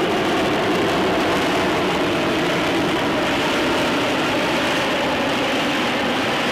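Lockheed Martin F-35B hovering, its F135 jet engine and shaft-driven lift fan running steadily: a loud, even jet rush that neither rises nor falls.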